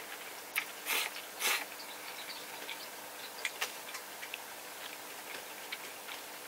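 A person slurps noodles in three quick sucks within the first second and a half, then chews, with many small wet mouth clicks and smacks.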